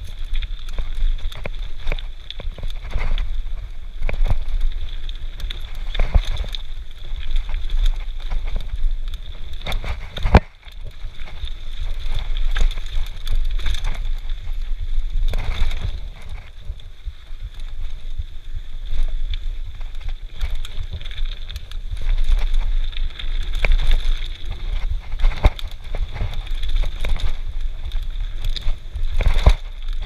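Mountain bike descending a dirt trail, heard from a camera mounted on the bike: a steady rush of wind on the microphone and tyre noise, with frequent clattering knocks as the bike rattles over the bumpy trail and one sharp knock about ten seconds in.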